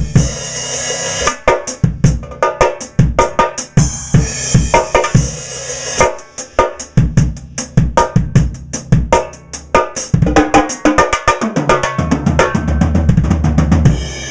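Pearl Firecracker steel-shell snare drum, tuned very high with the snare wires off, played in rapid strokes and fills with rimshots. The strokes run thickest into a dense roll near the end.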